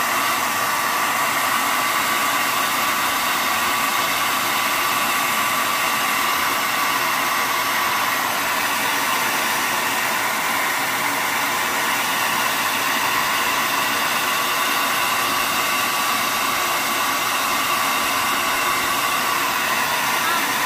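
Handheld hair dryer running steadily: a constant rush of blown air with a steady high whine from its motor.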